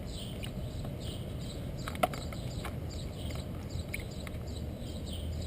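Outdoor background with a steady series of short high chirps, about two a second, and a single sharp click about two seconds in.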